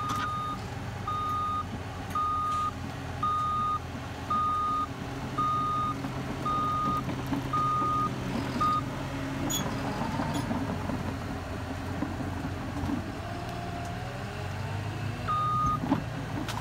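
Caterpillar crawler dozer's diesel engine running steadily while its backup alarm beeps about once a second as it reverses. The beeping stops a little past halfway, and one more beep sounds near the end.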